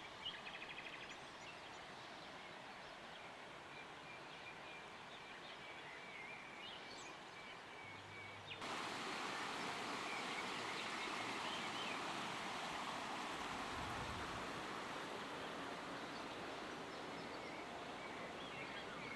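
Outdoor storm ambience: a steady rushing hiss with a few faint bird chirps. Just over eight seconds in it jumps suddenly to a louder, fuller rushing noise that stays steady.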